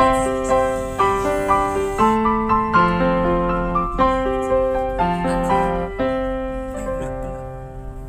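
Background piano music: a gentle melody of struck notes and chords, about two notes a second, growing a little softer near the end.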